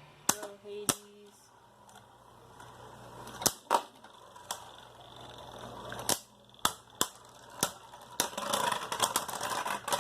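About a dozen sharp, irregular clicks and knocks, like hard objects tapped or set down, coming thicker near the end.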